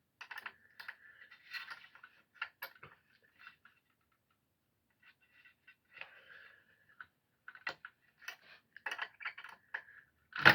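Irregular light metallic clicks and scrapes of a hand tool working on a planer's cutter head during a blade change, with a pause of about two seconds midway and a sharper knock at the very end.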